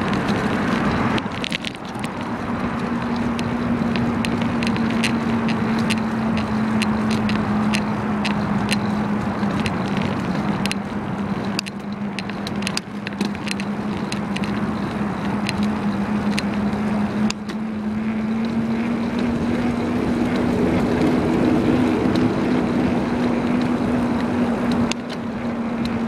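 Wind and road noise from a moving bicycle, with a steady low hum throughout and many small clicks and rattles, most of all in the middle.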